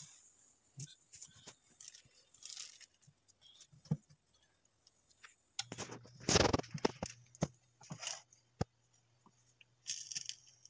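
Quiet kitchen handling as bread slices are laid into a nonstick frying pan: soft taps, clicks and rustles. A louder rustling burst comes a little past halfway, and a low steady hum sets in about then.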